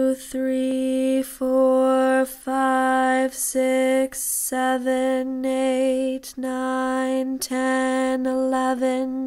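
A voice counting aloud on one tone, each number held on the same steady pitch, about one number a second with short breaks between.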